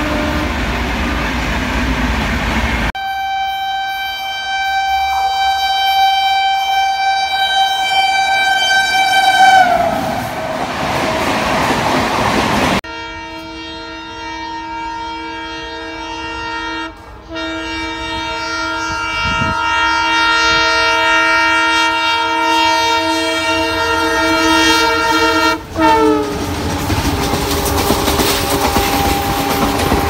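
Indian Railways locomotive horns on passing trains: a long horn blast that falls in pitch as the train goes by, then the rush and rattle of the coaches. Then a second long, chord-like multi-tone horn with a brief break, which also drops in pitch as the train passes and gives way to coach noise on the track.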